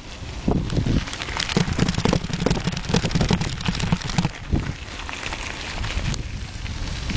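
Mountain bike tyres crunching and crackling over loose gravel, with a dense patter of small clicks and knocks and a steady low rumble underneath.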